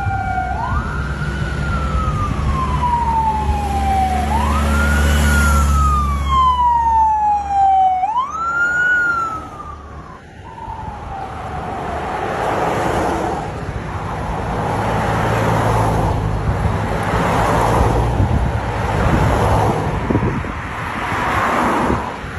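Police siren wailing, each rise in pitch quick and each fall slow, about four seconds per cycle. After three cycles it fades out about halfway through, leaving the noise of passing vehicles.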